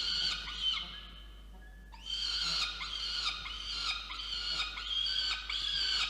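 Peregrine falcon chicks begging for food: a string of high, shrill, repeated calls, several a second. The calls ease off about a second in and start again, steadily, at about two seconds.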